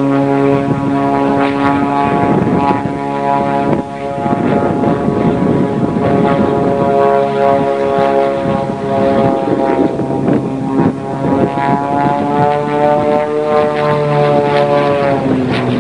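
Zlin Z-50 aerobatic plane's piston engine and propeller running at power in flight, a steady drone whose pitch shifts slightly up and down, with a brief dip in level about four seconds in.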